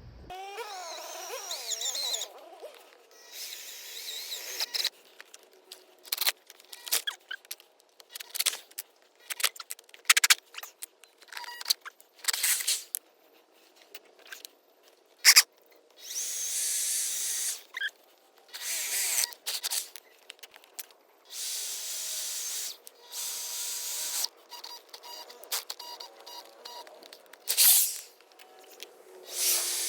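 Shop tool work: repeated bursts of a power tool, with hissing noise each lasting a second or two, between many sharp clicks and knocks.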